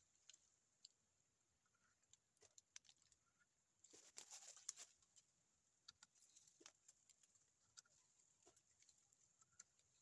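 Faint scraping and clicking of teeth gnawing at hard tree bark, in short irregular scrapes, with a denser burst of scraping about four seconds in. A faint steady high hiss runs underneath.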